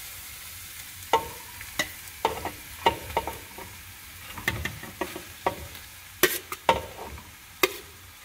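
A metal spoon knocking and scraping against steel vessels as cooked rice is emptied into a steel pot of fried vegetables: about a dozen sharp clinks, some ringing briefly, starting about a second in, over a low steady hiss.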